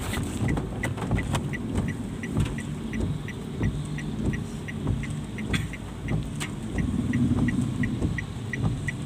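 A car's turn-signal indicator ticking steadily, about two to three ticks a second, as the car turns right. Under it is the low rumble of the car's engine and road noise in heavy rain.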